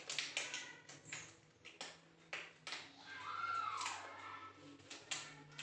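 A string of light clicks and knocks, with a short squeaky glide that rises and falls about three seconds in.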